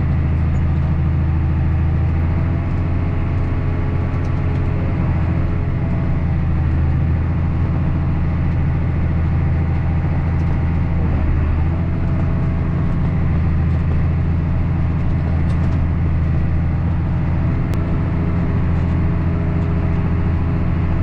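Farm tractor engine running steadily, a constant low drone with an even hum of overtones.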